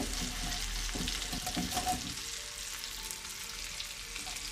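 Meatballs, tomatoes and green peppers frying in butter in a steel pan, a steady sizzle. In the first two seconds, a knife chops a dried red pepper on a wooden cutting board: a run of light knocks.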